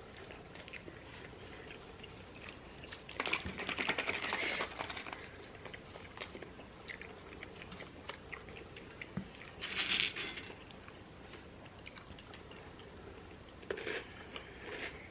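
Close-up chewing and crunching of food, with small clicks throughout and louder crunchy stretches about three seconds in, around ten seconds and near the end.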